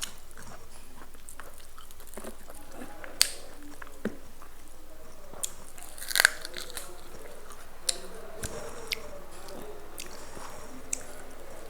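Scattered sharp clicks and knocks of food being prepared by hand, about eight in all with the loudest cluster a little past the middle, over a steady low hiss.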